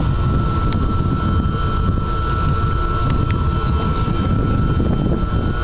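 Airlift aerator running in an aquaculture pond: a steady rush of water churning and bubbling as air is driven up through it, under a constant mechanical hum with a thin steady high tone.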